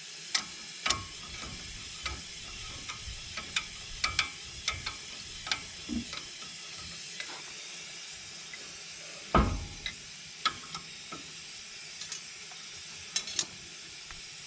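Irregular metallic clicks and taps of hand tools and channel locks working on a truck's front hub assembly, with a louder knock about nine seconds in, over a steady hiss.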